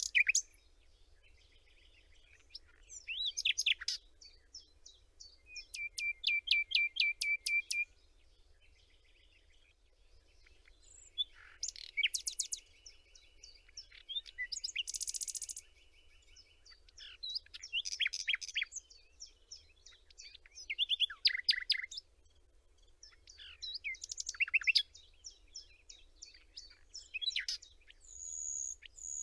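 Songbirds singing in a string of varied phrases a couple of seconds apart: rapid trills, quick runs of repeated notes and high sweeping whistles.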